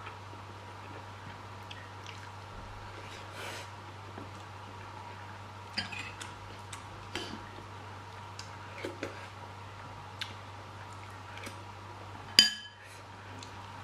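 Quiet eating and table sounds: soft wet mouth and food noises and scattered small clicks of fingers and utensils on dishes, over a steady low hum. Near the end, one sharp ringing clink of a metal spoon against a glass serving bowl.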